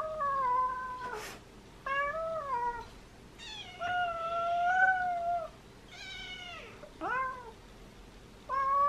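Domestic cat meowing: about six high calls in a row, several rising then falling, the longest drawn out for about two seconds midway.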